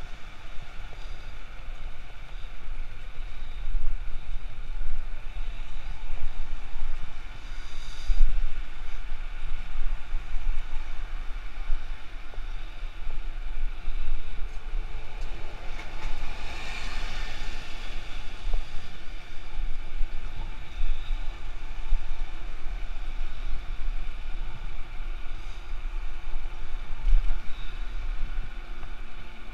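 Wind buffeting an action camera's microphone on a moving bicycle, a steady low rumble, with road traffic noise around it and a louder swell of noise about halfway through.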